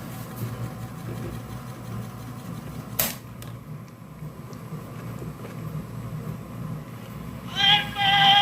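Steady low hum from the cassette tape mechanism and homemade transistor amplifier, with a sharp click about three seconds in. Near the end, a song from the cassette starts playing loudly through the amplifier.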